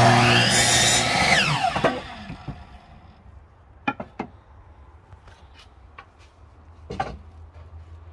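Electric saw cutting into wood for about two seconds, then its motor winding down with a falling whine. A few light knocks follow.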